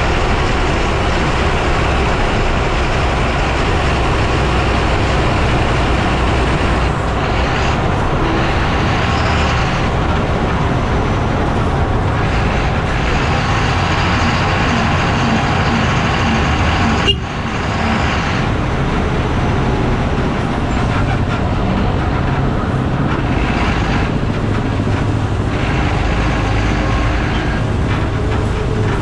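Lorry driving along the road, heard from under its chassis by the front wheel: steady, loud tyre and road noise with a deep rumble, and one sharp knock about seventeen seconds in.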